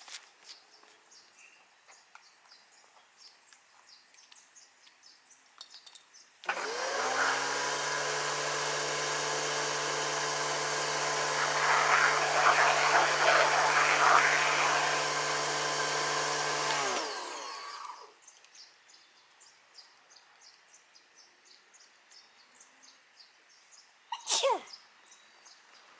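Pressure washer motor starting up abruptly and running at a steady pitch while it sprays water onto a motorcycle, the spray hiss growing louder for a few seconds in the middle, then winding down and stopping. A single short sharp sound follows near the end.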